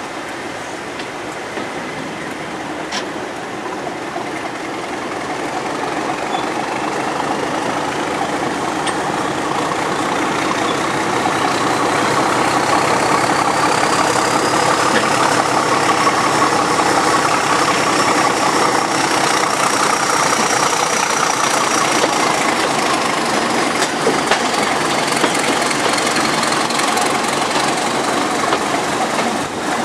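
Class 31 diesel locomotive's English Electric engine working under power. The engine grows louder a few seconds in, and a whine climbs slowly in pitch, then drops back near the end.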